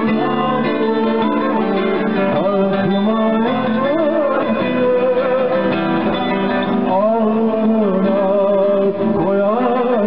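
A small choir singing a song, accompanied by acoustic guitars.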